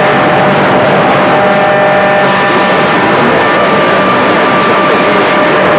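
CB radio receiver hissing with loud band static between transmissions, with faint steady whistling tones from other carriers on the channel.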